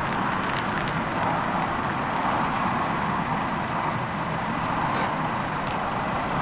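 A Nissan Navara pickup truck's engine running steadily as the truck reverses slowly, with a sharp click about five seconds in.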